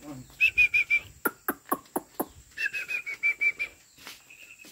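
A bird calling: two quick runs of short, even whistled notes, about seven a second, with a handful of sharp falling notes between the runs.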